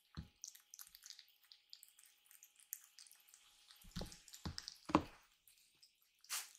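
Kitten eating from a raised food bowl: faint wet lapping and smacking clicks, with a few soft thumps about four to five seconds in and a short rustle near the end.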